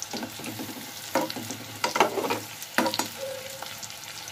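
Stuffed bitter gourds frying in mustard oil, a steady sizzle, with a metal spatula scraping and knocking against the pan about three times in the middle as they are stirred and turned.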